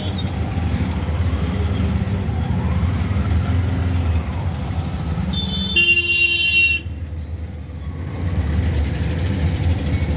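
Auto-rickshaw's small engine running steadily as it drives, heard from inside the passenger cabin. A vehicle horn sounds once, for about a second, a little past the middle.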